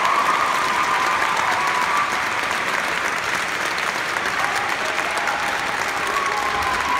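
Audience applauding steadily after a choral piece, with a few voices cheering over the clapping at the start and again near the end.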